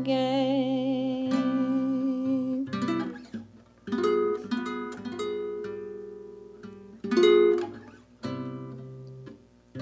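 Music: a singer holds a long note with vibrato that fades out, then an acoustic guitar plays a few plucked chords in separate groups, each left to ring down.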